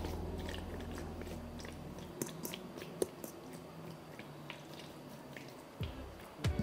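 Wet squelching and small clicks of hands kneading marinated beef slices in a stainless steel bowl. Background music fades out over the first two seconds and comes back in near the end.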